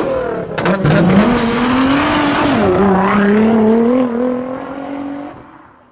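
Car engine held at high revs, its pitch wavering up and down, fading out near the end.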